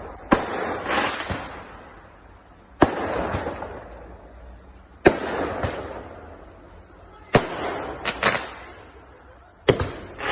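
Fireworks going off: five sharp bangs, about one every two and a half seconds, each followed by one or two smaller cracks and a fading rumble.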